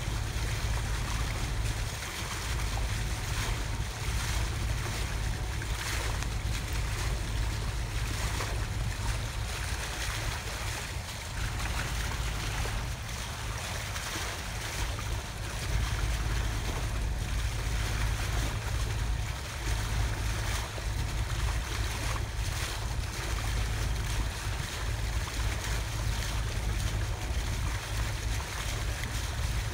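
Wind buffeting the microphone over the steady rush of water along the hull of a sailboat under way, with a low rumble throughout.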